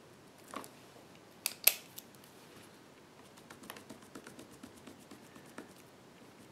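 An erasable gel pen scribbling on planner paper: a run of light, quick scratches about halfway through. A few sharp clicks come before it, the loudest about a second and a half in.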